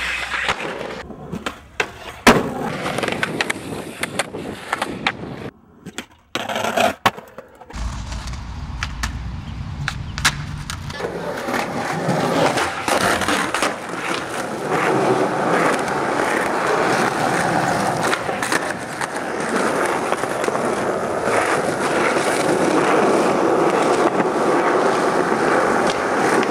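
Skateboard: sharp clacks and impacts of the board in the first several seconds, the loudest about two seconds in, then the steady roll of its wheels on smooth concrete from about eleven seconds in, slowly getting louder.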